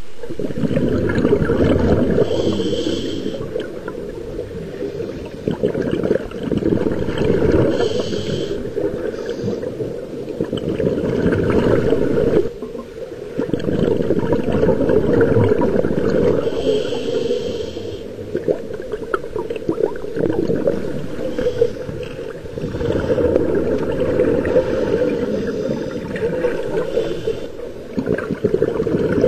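Scuba diver breathing through a regulator underwater: a short hiss on each inhale, recurring every several seconds, with the bubbling of exhaled air in between.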